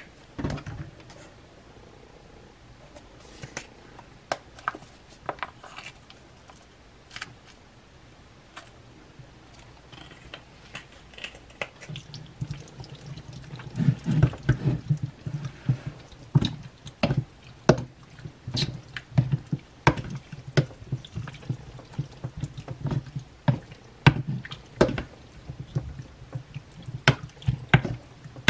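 A metal spoon stirring raw chicken pieces in a wet marinade in a bowl: squelching of meat and liquid with sharp clicks of the spoon. Only a few scattered clicks at first; from about halfway through the stirring is steady and much busier.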